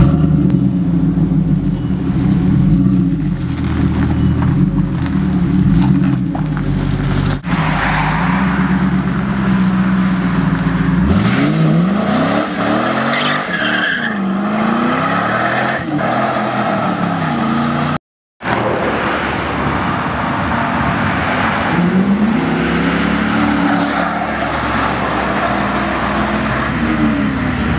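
Pontiac Trans Am WS6's LS1 V8 on its stock exhaust, before long-tube headers: running and revving at the tailpipes, then revved up and down repeatedly with tire squeal in a burnout, then revving again under acceleration. The sound breaks twice at edits, once with a brief silence.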